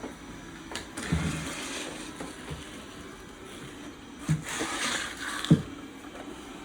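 Dreame D9 robot vacuum running with a steady hum. Twice its sound swells into a louder whoosh, once about a second in and again from about four seconds, and there are a few knocks, the sharpest one about five and a half seconds in.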